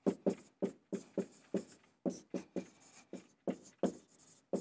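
Dry-erase marker writing on a whiteboard: a quick run of short strokes, about three a second.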